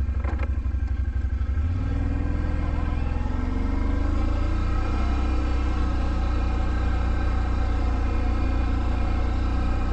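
Can-Am Outlander ATV engine running as the quad rides along a dirt trail; its note steps up about two seconds in and then holds steady.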